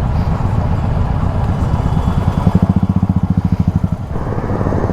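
Motorcycle engine running at steady low revs with a rapid, even beat. The beat grows stronger about two seconds in and eases just after four seconds.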